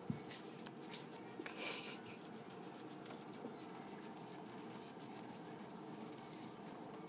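Guinea pig chewing mitsuba (Japanese parsley) stem and leaves: a run of small, crisp crunching clicks, with a brief louder rustling burst about a second and a half in.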